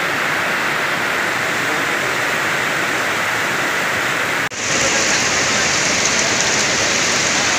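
Steady rushing of a cold lahar, a fast flood of volcanic mud, ash and rocks, mixed with the hiss of heavy rain. It cuts out for an instant a little past halfway and comes back louder and hissier.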